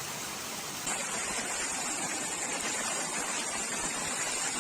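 Steady rushing of floodwater, an even noisy wash that changes character abruptly about a second in.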